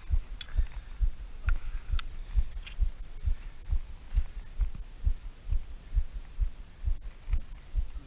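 Dull, low thumps repeating evenly at about two a second, picked up through the chest-mounted camera, with a few faint light clicks over them.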